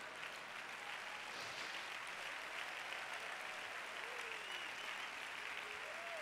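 Large congregation applauding steadily, with a couple of faint voices calling out about four and six seconds in.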